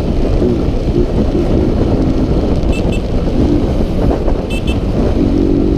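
Honda CG 160 Fan's single-cylinder engine running at a steady cruise while riding, with heavy wind rush over the microphone. The engine note holds a steady pitch and grows clearer near the end.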